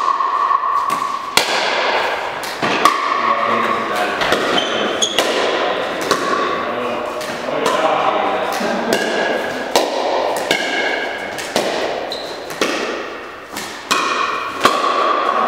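Pickleball rally: paddles hitting a hollow plastic ball, a series of sharp pops at uneven intervals of about a second, each with a short echo.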